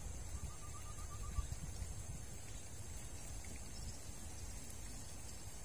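Riverbank ambience: a steady high insect drone over a low rumble of wind and moving water. About a third of a second in, a bird gives a quick trill of about eight short notes, and a small bump follows about a second and a half in.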